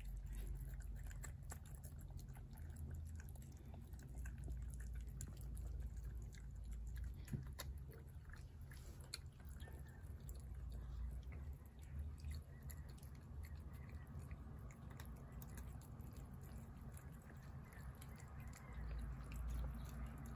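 A cat chewing wet food off a plate, making many small, quick clicks as it eats.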